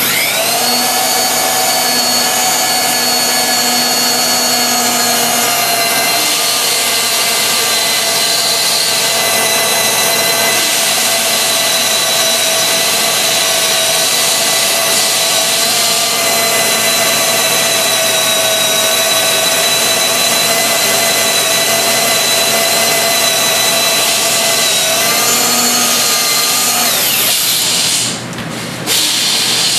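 Hand-held power drill boring through a jig's drill bushing into an aluminium Harley-Davidson Twin Cam cylinder head to make the hole for a manual compression release. The motor spins up at the start into a loud, steady whine, winds down a little before the end, pauses briefly, then starts again.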